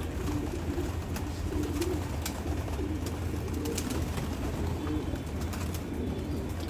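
A flock of racing pigeons cooing continuously, many low warbling calls overlapping, with a few short sharp ticks mixed in.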